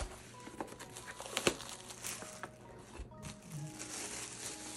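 Clear plastic shrink wrap crinkling and crackling as it is pulled off a cardboard box, with sharp crackles through the first three seconds and a light thump about three seconds in as the box is set down. A soft music-box tune plays underneath.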